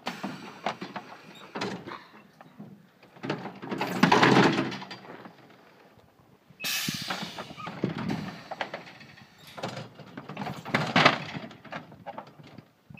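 Pneumatic automatic sheep handler cycling: steel gates and the crate sliding and banging shut with irregular clanks and rattles, loudest about 4 s in and again near the end, and a sudden hiss of air about two-thirds through.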